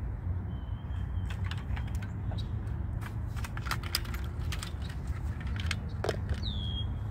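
Small metal clicks and rattles from handling a hanging dial fish scale and the aluminium landing-net frame, over a steady low rumble. A short high whistle near the end.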